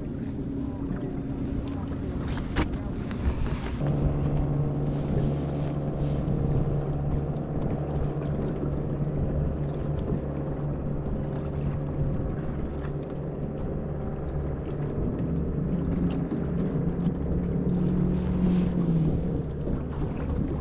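A boat motor running steadily with a low hum. It grows louder about four seconds in, and its pitch rises briefly near the end.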